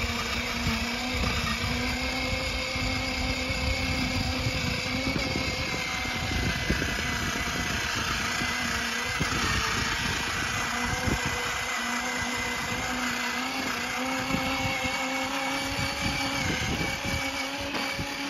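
Electric motor of a toddler's battery-powered ride-on toy motorcycle running with a steady whine over a rough low rumble as it drives along. It sounds weak, which the parent puts down to a battery that wasn't charged enough.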